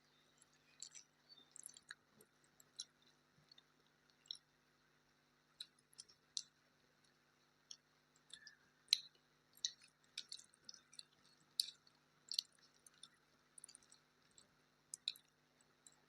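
Faint, irregular wet mouth clicks and smacks of someone chewing food, one or two a second.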